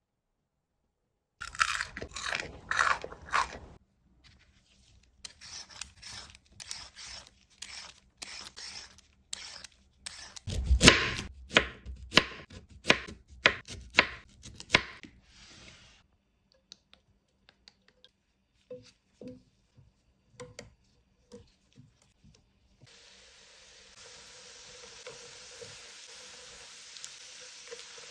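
Kitchen knife cutting raw peeled sweet potato on a wooden cutting board: a long run of sharp crunching cuts, each slice a separate stroke. About two-thirds of the way in, a steady sizzle starts as the sweet potato slices fry slowly in oil in a pan.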